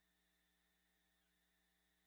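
Near silence: a faint steady electrical hum and hiss on the scanner feed between transmissions.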